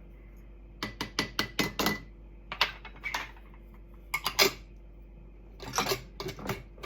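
Measuring spoon clinking and tapping against a pint glass jar while dry lime powder is tipped in: sharp clicks in several quick bunches.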